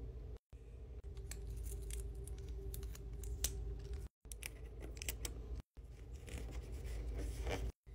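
Close paper-craft handling: sharp scissor snips through paper and clear sticky tape being handled, folded and pressed onto paper, with light paper rustling. The sound drops out abruptly several times between short clips, over a steady low hum.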